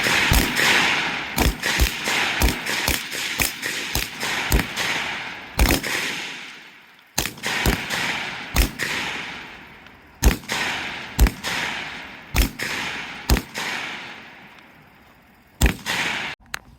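C7A2 rifles (5.56 mm) firing single shots from several shooters at once, at irregular intervals, each crack followed by a long rolling echo. The shooting thins out and stops near the end.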